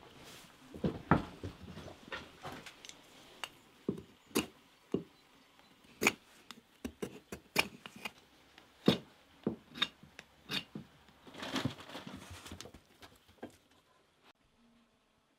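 Knife blade cutting and scraping a wooden block by hand, a string of short, sharp scraping clicks at an irregular pace that dies away near the end.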